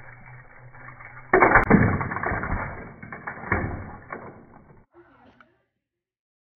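A sudden loud crash about a second and a half in, followed by noisy clatter that dies away over about three seconds.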